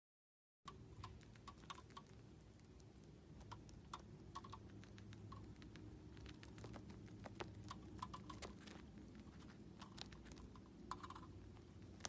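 Faint, irregular light clicks and taps, some in quick little clusters, over a low steady hum: cockatiels pecking with their beaks and stepping about.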